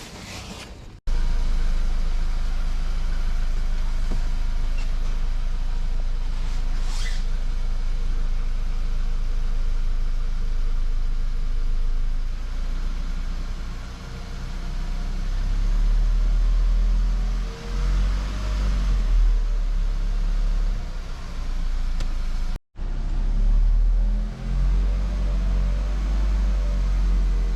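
Volkswagen Golf Mk5 engine running with a steady low drone, louder for a few seconds a couple of times. This is a test of whether the fuel lines, now secured with cable ties, have stopped rattling.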